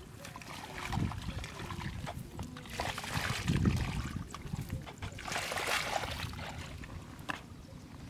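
Footsteps squelching and splashing in shallow muddy water, an irregular series of wet steps and splashes.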